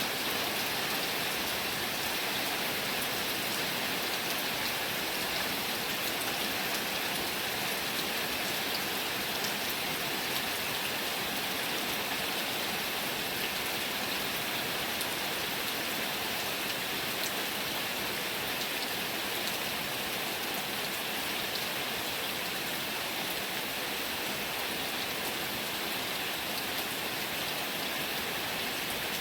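Heavy rain falling steadily, a dense even hiss of raindrops that doesn't let up.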